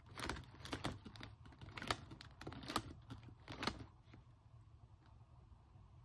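Pages and plastic dividers of a disc-bound planner being turned one by one: a series of short paper-and-plastic rustles and clicks, about five in the first four seconds, then fainter handling.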